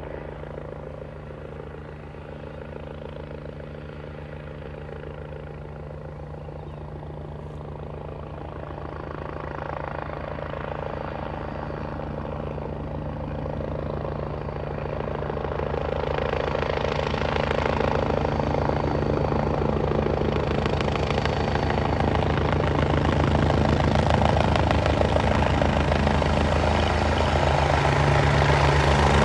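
Agusta A109 Power twin-engine helicopter coming in to land, its rotor and engine sound growing steadily louder as it approaches.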